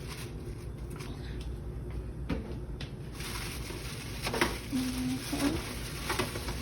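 Light kitchen handling noise as shrimp are put into a plastic bag: soft rustling and a few small knocks over a steady low background hum.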